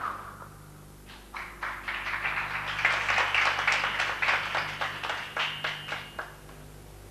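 Scattered handclapping from a small audience, starting about a second in, thickening, then thinning out near the end, over a low steady hum.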